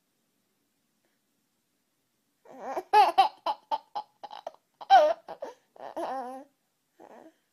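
A baby laughing in a quick run of short, high-pitched bursts, starting about two and a half seconds in.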